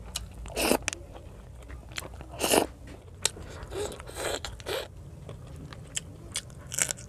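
Close-miked eating sounds: a person biting and chewing fried fish and rice eaten by hand, with several louder crunches spread across the moment between quieter chewing and smacking.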